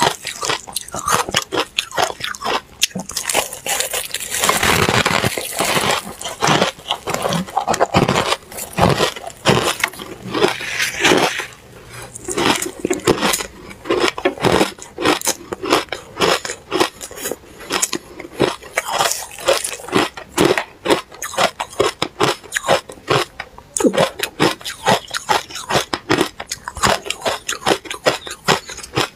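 Powdery foam ice being bitten and chewed: a rapid run of crisp crunches and crackles, bite after bite, with a longer, denser stretch of crunching about four to six seconds in.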